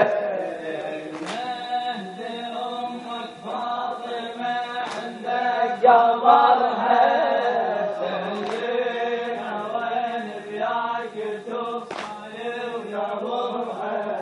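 Unaccompanied male chanting of a radood's Shia eulogy (latmiya), a slow melodic line drawn out on long notes. About four sharp knocks cut through it.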